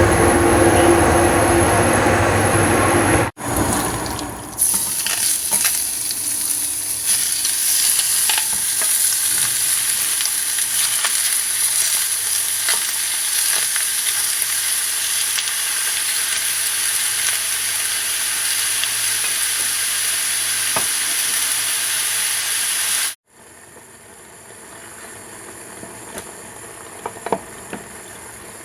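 Chicken pieces frying in oil in a pan: a steady sizzle, stirred now and then, with a few sharp utensil clicks near the end. It opens with a few seconds of a louder, deeper rushing noise. After a break about three-quarters of the way in, the sizzle is much quieter.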